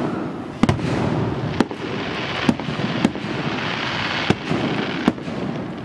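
Aerial fireworks going off: six sharp bangs, roughly one a second, over a steady crackle that swells in the middle.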